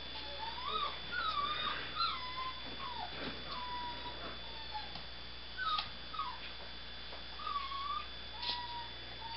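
Seven-week-old Nova Scotia duck tolling retriever puppy whimpering repeatedly in short, wavering high whines while it tugs at a cloth rag, with a few sharp clicks between the whines.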